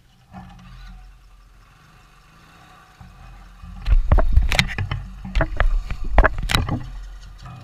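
Handling noise from a camera being touched: a fingertip knocking and rubbing on the camera and its microphone, loudest as a burst of sharp knocks between about four and six and a half seconds, over a low rumble.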